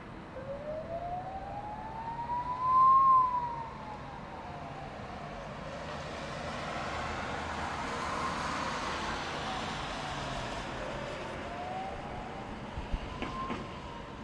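An emergency vehicle siren in a slow wail, rising in pitch for about two seconds, peaking and falling back, then rising and falling again near the end. A rushing noise swells and fades in the middle, and a few clicks sound near the end.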